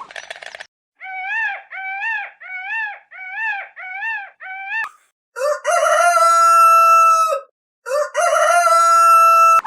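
Chicken calling: six short calls that rise and fall, then two long, loud crows of about two seconds each, held at a steady pitch.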